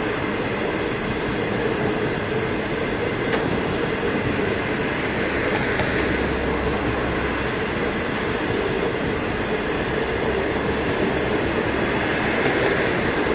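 Passing train of green China Railway 25G-type passenger coaches: a steady, continuous rolling noise of steel wheels on the rails as the carriages go by at speed.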